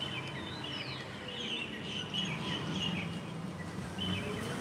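Birds chirping, many short high calls overlapping, over a steady low hum. The chirping pauses briefly about three seconds in and then starts again.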